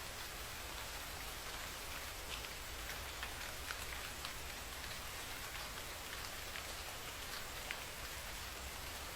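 Steady rain falling on city street surfaces, a continuous hiss with scattered individual drops ticking, over a low steady rumble.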